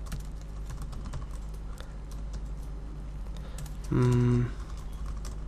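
Typing on a computer keyboard: a run of light, irregular key clicks over a steady low electrical hum. About four seconds in, a brief hummed voice is heard.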